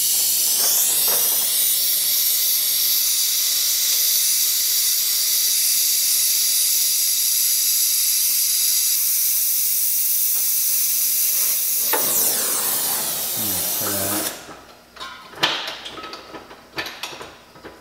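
Gas torch flame hissing steadily while heating a seized exhaust stud to free it. The hiss cuts off about fourteen seconds in, followed by a few light metal clinks and knocks.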